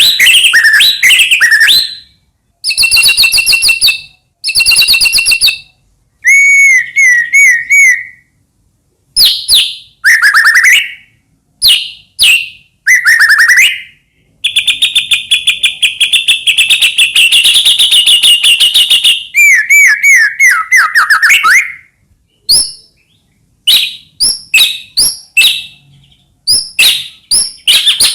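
White-rumped shama (murai batu) singing loudly in a string of varied phrases: rapid trills, clear whistled notes and repeated downward slurs, broken by short pauses. In the middle, one fast trill runs on for about five seconds.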